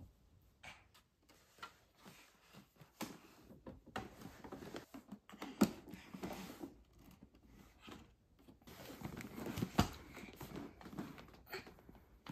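Irregular knocks, scrapes and rustling of a baby playing, pushing a chair across the floor and handling plastic toys, with two sharper knocks about five and a half and ten seconds in.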